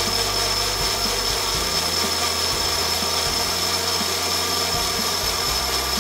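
Small personal blender running steadily with a high whine, puréeing chopped strawberries with no water added. Its low hum steps in pitch a few times.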